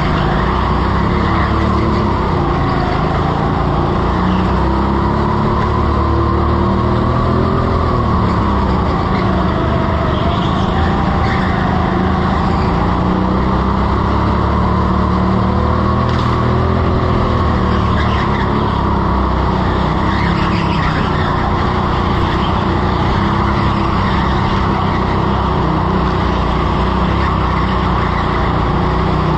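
Go-kart driven hard around a smooth indoor track, heard from onboard: its motor note rises and falls with speed through the corners, with tyres squealing and skidding on the polished floor.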